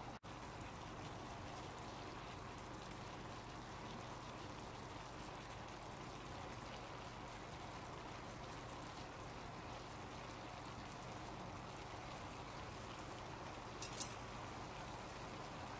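A steady, even hiss like rain or running water, with one short sharp click about fourteen seconds in.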